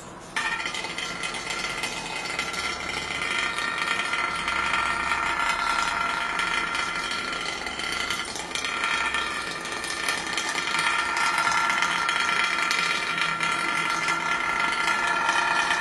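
Small battery-powered vibrating toy bugs buzzing and rattling against the inside of a plastic bowl. The sound starts abruptly about half a second in and then holds steady.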